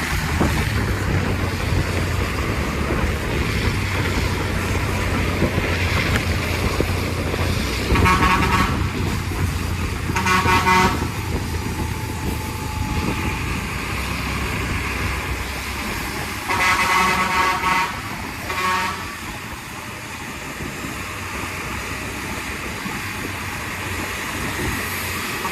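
A bus's Basuri V3 telolet multi-tone horn plays short musical blasts: two close together about a third of the way in, and two more just past the middle. Under them runs the steady low rumble of the bus engine under way.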